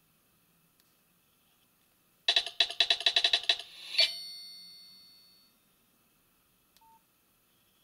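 Nokia 6280 polyphonic ringtone playing: a fast run of about a dozen bright notes starting a couple of seconds in, ending on a ringing chord that fades out over about a second and a half. A brief faint beep follows near the end.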